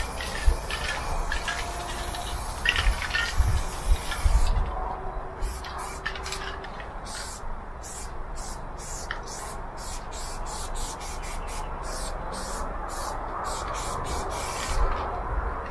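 Aerosol spray paint can hissing as it paints a freight wagon's steel side. The spray is continuous for the first few seconds, with a low rumble, then comes as many short, quick bursts, about two or three a second.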